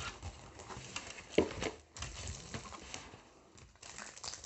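A large plastic-covered diamond painting canvas being handled and smoothed on a table: rustling and crinkling with light taps, and one sharper knock about a second and a half in.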